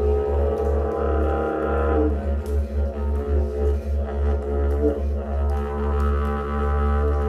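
Didgeridoo played in a lava tube: a low steady drone pulsed rhythmically about four times a second, with overtones that swell and shift above it.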